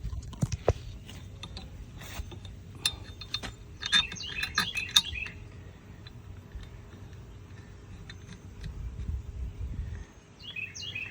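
Scattered clicks and knocks of plastic parts and screws being handled and fitted onto a pressure washer frame, thickest in the first half. A songbird chirps in short repeated phrases around the middle and again near the end.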